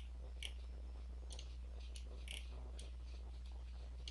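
A handful of faint, sharp computer mouse clicks, irregularly spaced, over a steady low electrical hum.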